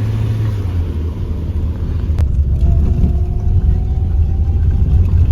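A loud, steady low rumble with a single sharp click about two seconds in.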